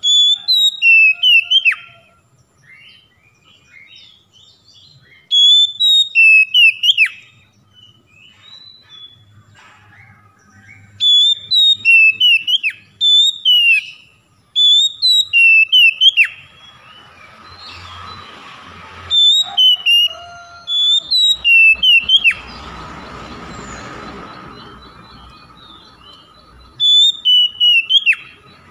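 Oriental magpie-robin singing: short bursts of loud, clear whistled notes with quick falling slurs, repeated every few seconds with pauses between.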